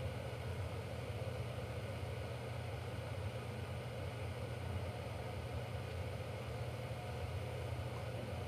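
Steady low hum with an even hiss: the room tone of a lecture room, unchanging throughout.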